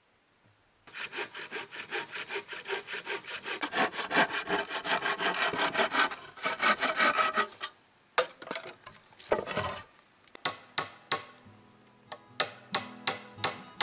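Bow saw cutting through a wooden pole with rapid, even back-and-forth strokes, stopping about eight seconds in after a few last strokes. Near the end comes a run of sharp, evenly spaced knocks.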